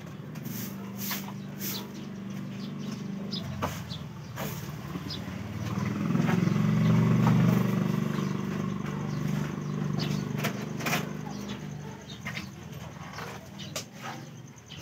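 A motor vehicle's engine running, growing louder around the middle and then fading, with scattered light clicks and knocks.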